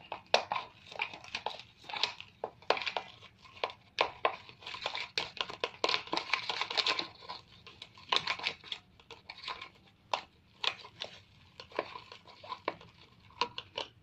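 Sticky homemade glue slime being squeezed and pulled by hand: an irregular run of wet clicks and crackles, densest about midway.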